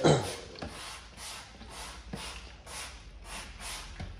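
Squeegee rubbing over polyurethane paint-protection film in quick repeated strokes, about two a second, as the film's edges are worked down onto a car part. A short, loud creak sounds right at the start.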